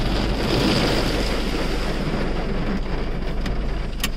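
Automatic car-wash water jets spraying onto the car's body and windshield, heard from inside the closed cabin as a dense hiss, loudest in the first second and a half and easing a little after. A single sharp click sounds near the end.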